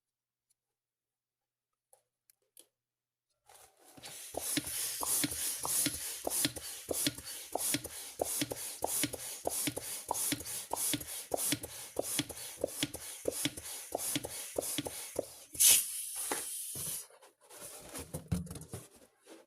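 A balloon being handled: after a few seconds of near silence, a long run of fast, even strokes, several a second, with one loud sharp crack near the end. Scattered small handling noises follow.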